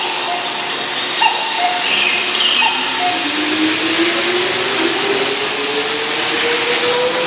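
Keihan 6000-series electric train pulling out and accelerating past, its motor whine rising steadily in pitch over a steady rushing noise.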